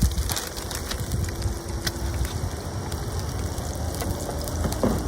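Bacon and eggs frying in oil in a pan, a steady sizzle with many small crackles and pops, over a low rumble.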